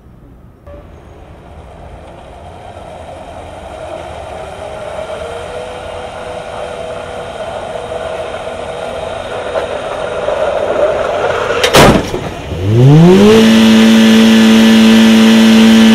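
Low-speed crash test of a 2014 Ford EcoSport. A whine rises and then holds, growing louder as the car is driven up to speed toward the barrier. About twelve seconds in comes a sharp crash as its front strikes the barrier. Then a very loud tone glides up in pitch over about a second and holds steady.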